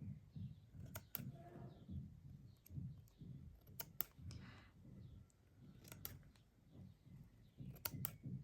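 Small embroidery scissors snipping thread, a few sharp snips, some in quick pairs, about a second in, at four seconds, and twice more near six and eight seconds, with soft rustling of the fabric being handled.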